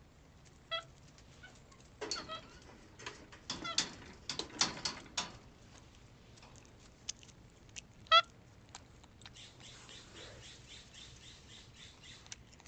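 White-fronted capuchin monkey giving a few short squeaky chirps, the loudest about eight seconds in, with a spell of clicking and crackling in between.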